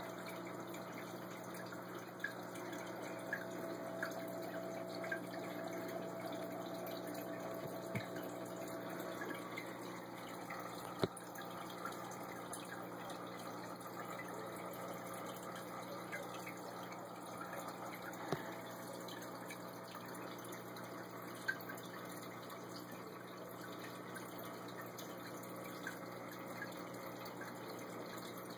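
Aquarium filter running: a steady trickle of moving water over a low electrical hum, with scattered small clicks and drips.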